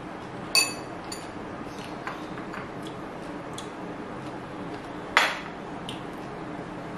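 A metal spoon clinks against a small glass bowl with a brief ring, followed by a few light ticks, then a louder knock of glassware set down on a table a little past five seconds in.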